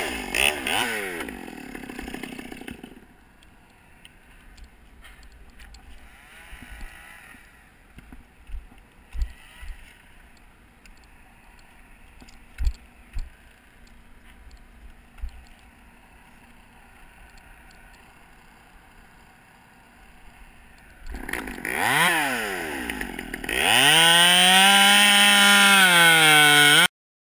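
Chainsaw revving with its pitch sliding, then dropping away to a long quieter stretch broken by a few sharp knocks. Near the end it revs up again and runs at full throttle until it cuts off suddenly.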